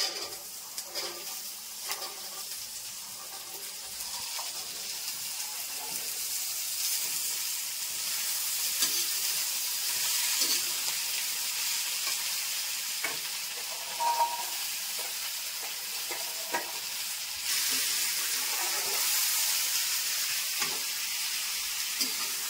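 Soaked chickpeas frying in hot oil in a metal kadhai, sizzling steadily, with a metal slotted spoon scraping and knocking against the pan now and then as they are stirred. The sizzle grows louder about three-quarters of the way through.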